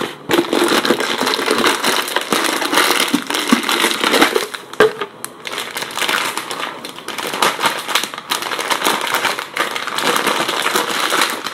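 Plastic bag crinkling and rustling as it is pulled out of a plastic jar and handled, a loud, dense crackle with a few brief lulls.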